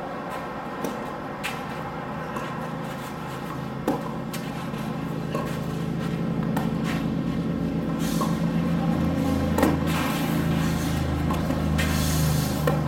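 Tennis ball struck by racket strings again and again during a serve and rally, each hit a sharp knock. Under the hits runs a steady low hum that swells from about four seconds in.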